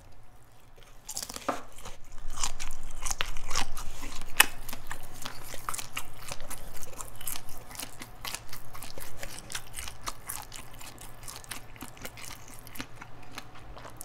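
Close-up crunching and chewing of a boiled black tiger shrimp eaten whole with its shell on. The crunching is loudest a couple of seconds in and eases to softer, sparser chewing over the last few seconds.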